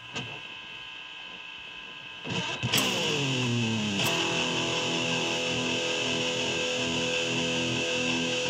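Electric guitar through an amplifier: a steady hiss for the first couple of seconds, then a played note that slides down in pitch and settles into a held, ringing note with the hiss still under it.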